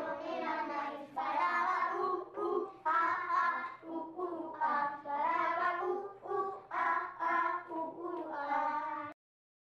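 Children singing a song in Basque, phrase after phrase, breaking off abruptly near the end.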